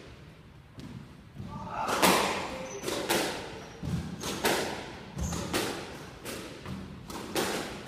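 Squash rally: the rubber ball cracking off the rackets and smacking against the front wall and floor in sharp, echoing hits about every half second, starting about two seconds in.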